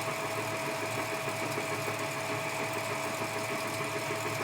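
Edgwick metal-turning lathe running steadily: an even whine over a low hum.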